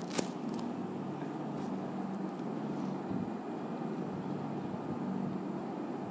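Steady low background hum and noise, with one sharp click just after the start.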